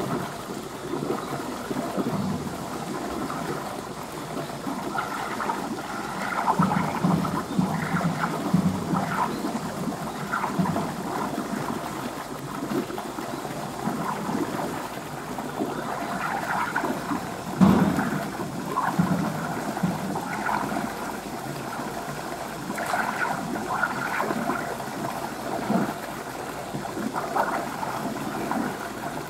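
Water sloshing and splashing in a beaver pool, an uneven ongoing wash of sound, with one louder thump about eighteen seconds in.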